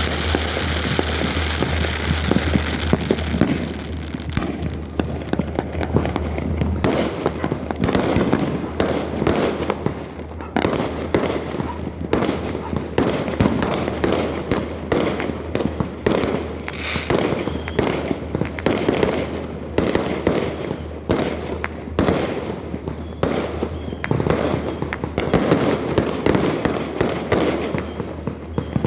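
Many fireworks going off at once: a crackling hiss at first, then from about seven seconds in a dense, unbroken barrage of sharp bangs and pops, several a second.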